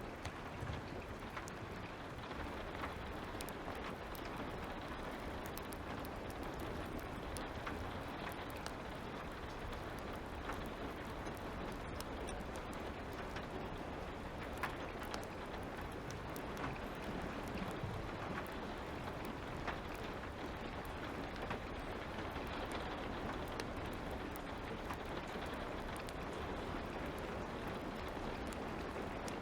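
Steady light rain with scattered sharp crackles and pops of a wood fire.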